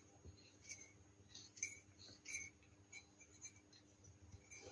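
Near silence with a few faint, irregular clicks and scrapes: the stem of a sectioned brass piston valve being turned by hand, raising the piston so the washer lifts off its seat.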